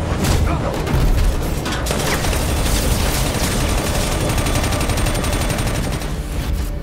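Film battle sound effects: heavy booms and impacts in the first second or so, then a long stretch of rapid automatic gunfire over a deep rumble.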